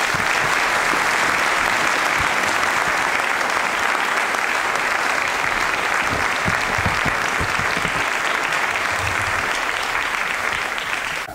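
A large audience applauding steadily; the clapping cuts off suddenly near the end.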